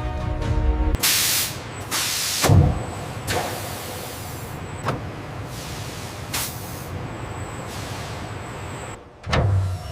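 Machinery letting off air in repeated loud hissing bursts, some short and one longer, with a heavy clunk about two and a half seconds in; music ends in the first second.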